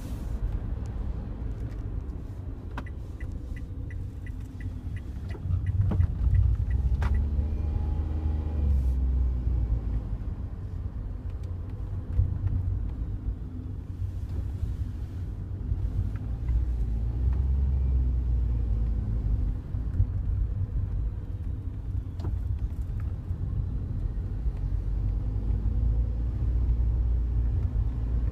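Cabin of a Daihatsu Wake kei car while driving: steady road and engine rumble, with the engine note rising and falling several times. Scattered sharp clicks and a quick run of about ten ticks, about three seconds in, stand out over it: the kind of dashboard rattle the car has developed on the passenger side, made louder by vibration.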